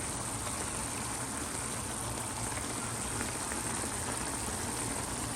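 Pot of braised peas simmering on the stove, a steady bubbling.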